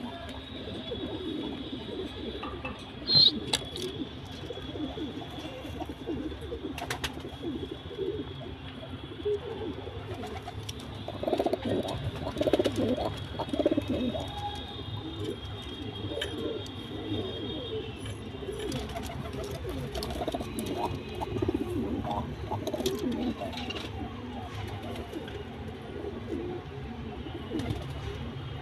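Domestic pigeons cooing on and off, their low rolling coos loudest around the middle, with one sharp click a few seconds in.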